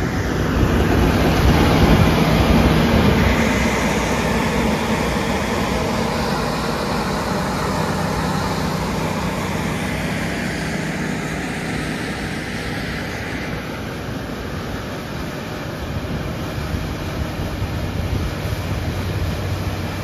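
John Deere X9 combines harvesting barley as they pass close by: a steady, heavy diesel drone that is loudest about two seconds in and then slowly eases.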